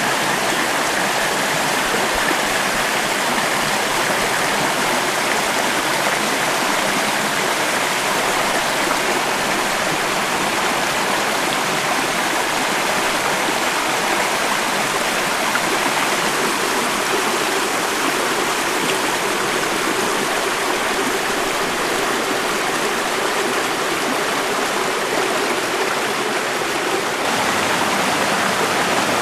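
Small stream running over rocks and down little cascades: a steady rush of water.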